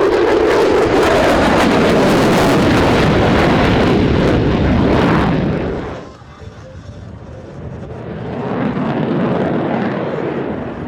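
F-22 Raptor's twin jet engines, a loud steady roar of jet noise for about five seconds that drops away abruptly about six seconds in, then builds again toward the end.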